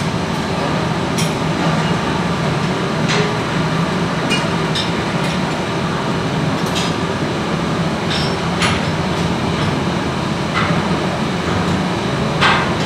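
Steady machinery hum with a dozen or so sharp knocks and clinks at irregular intervals, typical of hand tools working on metal parts during a turbocharger overhaul. The loudest knock comes near the end.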